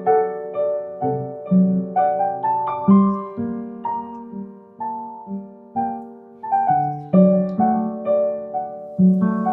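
Background piano music: a gentle melody of notes struck about twice a second, each one fading away.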